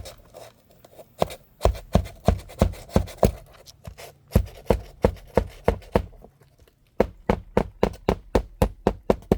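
Hand hammer driving a roofing nail back into the nail bed under a lifted architectural asphalt shingle: sharp strikes at about three a second in three runs, the last run quicker.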